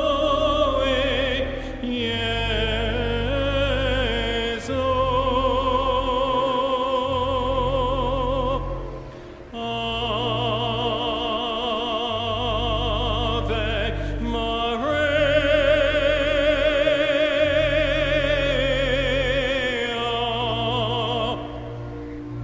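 A solo voice singing slow, held notes with heavy vibrato over sustained low bass notes, in an operatic classical style. The singing breaks off briefly about nine seconds in, then resumes, and stops shortly before the end.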